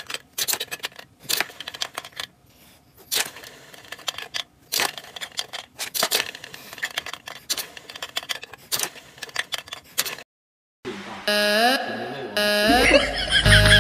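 Irregular clicks and knocks of hard plastic as a French bulldog paws at a plastic treat toy. After a short silence, music with gliding electronic tones starts near the end.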